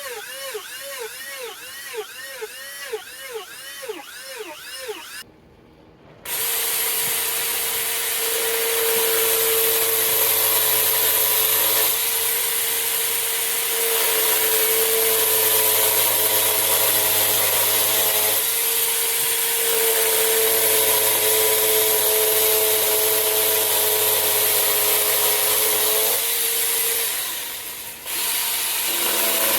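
Handheld power tool working white cedar. At first its pitch dips and recovers about twice a second, pass after pass. After a short break it runs steadily under load, stopping briefly near the end.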